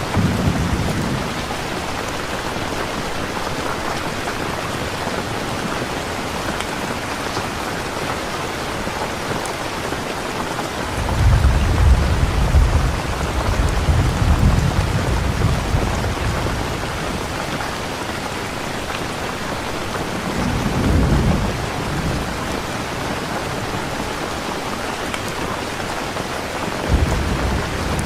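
Steady rain falling, with low thunder rumbling through it: a long roll about eleven seconds in, another around twenty seconds, and a third starting near the end.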